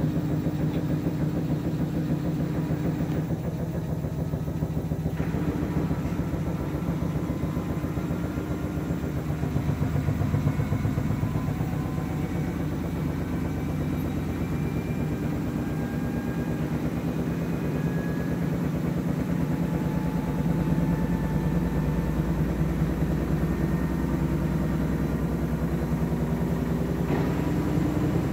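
Samsung front-loading washing machine running a spin, with a steady fast low rumble and a faint motor whine that slowly climbs in pitch.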